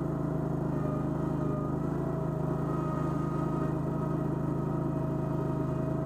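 Toro Dingo mini skid steer's gasoline engine running steadily, with a constant whine above the engine note.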